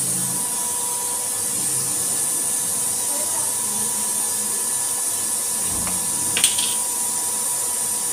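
Steady whirring hiss with a faint steady whine from a running induction cooktop's cooling fan and coil. About six and a half seconds in there is a single sharp click as a plastic spice jar of cumin seeds is opened.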